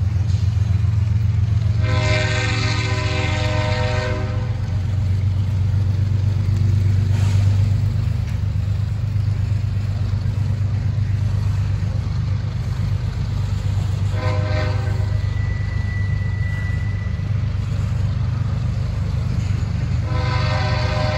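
Double-stack intermodal well cars rolling past with a steady low rumble. A locomotive's multi-chime horn, distant at the head end, blows three times: a long blast about two seconds in, a short one midway and another long one starting near the end. The lead unit is a GE ES44AC with a Nathan K5HL horn.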